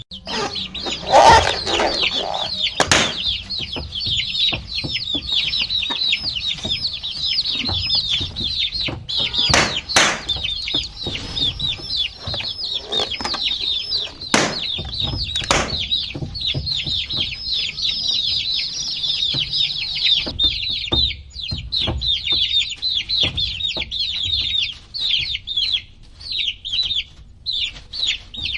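A brood of baby chicks peeping nonstop: many overlapping short, high, downward-sliding chirps. A few sharp taps or knocks break in now and then.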